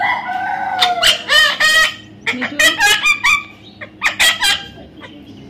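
Parrot calling: three quick runs of short, loud, pitched squawks, each run under a second long.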